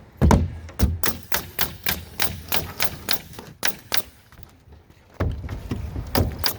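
Senco nailer firing in quick succession, about three shots a second, as it fastens plywood roof sheathing. After a short pause come two more shots near the end.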